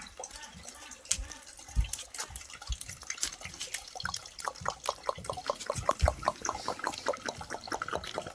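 Cat eating, with quick wet mouth clicks that start sparse and come about five or six a second after a few seconds, and a couple of soft low thumps.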